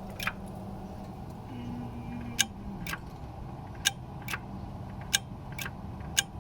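Fuel shutoff solenoid on the Kawasaki FH601V engine's carburetor clicking as the ignition key is turned on and off, about eight sharp clicks, several in pairs, over a steady low hum. The clicks show the solenoid is working.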